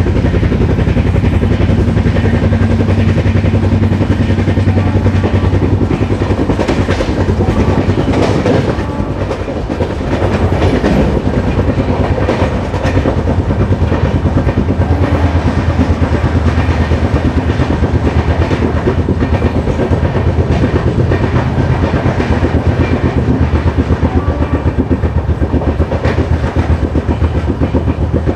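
Track sound of an LHB passenger coach running through a station at speed: a steady wheel-on-rail rumble with rapid, even clickety-clack over rail joints and points. The sound dips briefly about nine seconds in.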